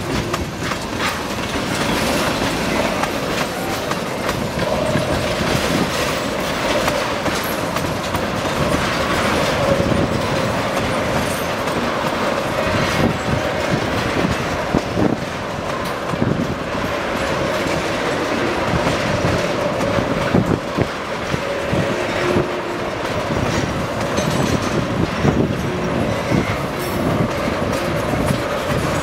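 Tank cars of a CN freight train rolling past at speed: a steady rumble with the clickety-clack of wheels over rail joints. A steady squeal from the wheels on the rail rides over it for much of the time.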